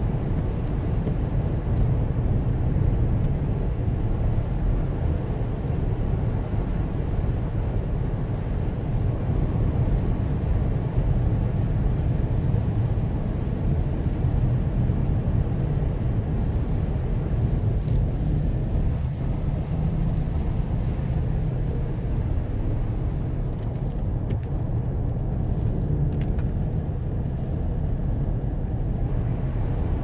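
Steady low rumble of a car driving, heard from inside the cabin: engine and tyre noise on a snow-covered road.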